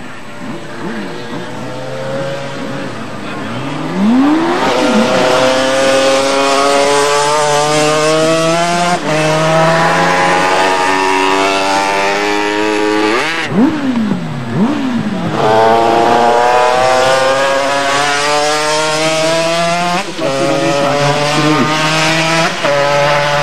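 Two-stroke Honda RS250 racing motorcycles accelerating hard along the track. Their high engine note climbs through the gears, with short breaks at each shift, and a bike passes close about halfway through with a sharp drop in pitch.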